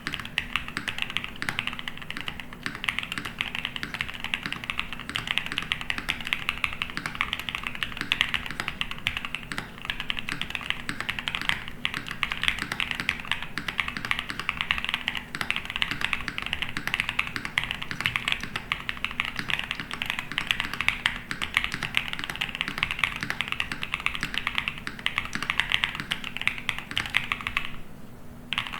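Steady, fast typing on a mechanical keyboard with factory-lubed BSUN YOU linear switches (UPE stems, POM housings) in an aluminium-plate, gasket-mounted board without foam, under DCD-profile keycaps. Dense, continuous key clicks and bottom-outs with no tactile bump, with a brief pause in the typing near the end.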